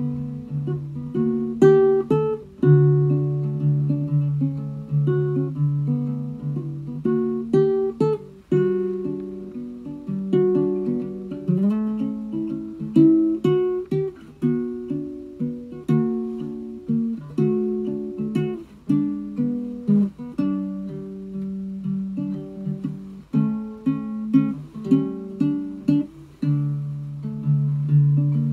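Solo ukulele played with the fingers: a slow, unhurried melody of single plucked notes and chord tones over a recurring low note, each note ringing and fading.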